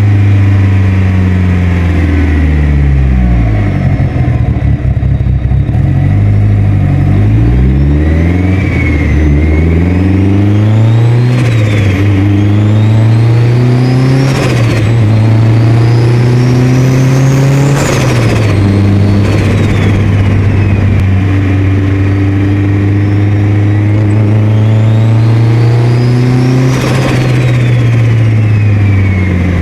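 Turbocharged 2.0-litre 4G63 four-cylinder of a Mitsubishi Lancer Evolution VIII pulling hard, its revs climbing and then dropping sharply several times as the throttle is lifted. With the blow-off valve deleted, each lift brings turbo flutter: compressor surge as the boost pushes back through the turbo.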